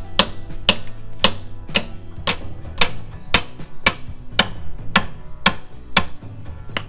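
Steel hammer driving a punch against the rusted brake drum on a 1935 Dodge truck's rear axle, to free the seized drum: sharp metal-on-metal strikes at a steady pace of about two a second. Background music plays underneath.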